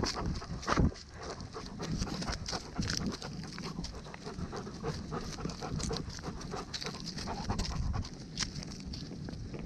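A dog panting as it walks, over a dense run of small knocks and scuffs.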